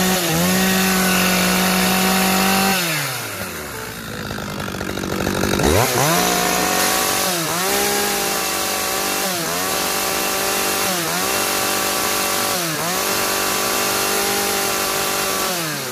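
Dolmar 115 chainsaw's 52cc two-stroke engine revving high with the chain spinning free. It drops back to idle about three seconds in, revs up again a few seconds later, and holds high with a short dip roughly every two seconds before falling off right at the end.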